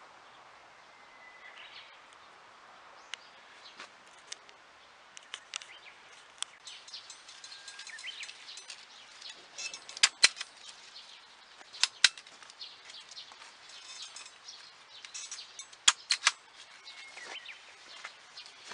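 Hand tape-tying tool (tapener) snapping shut as grape shoots are tied to trellis wire: sharp clicks, a pair about ten seconds in, one near twelve seconds and two close together near sixteen, with leaves and shoots rustling in between.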